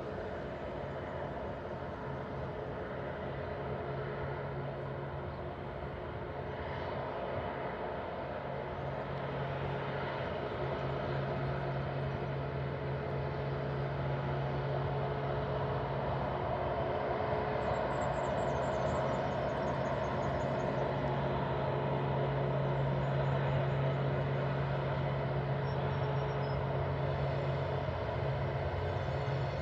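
TasRail TR-class diesel-electric locomotives working hard up a grade, unseen. It is a steady low engine drone that slowly grows louder as the train approaches. A few high bird chirps come about two-thirds of the way in.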